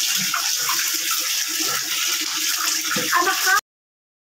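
Water running and splashing: a wall tap pouring into a plastic bucket while a dipper of water is poured over someone's head. The rush is steady, then cuts off suddenly about three and a half seconds in.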